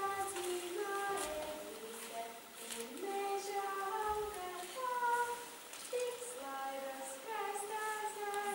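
A young girl's voice singing a slow, simple melody, one voice holding notes.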